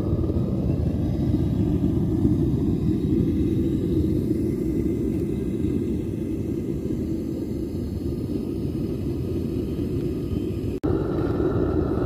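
Propane burner of a homemade foundry furnace running steadily at full heat while aluminium melts in the crucible: a loud, even, deep rushing noise.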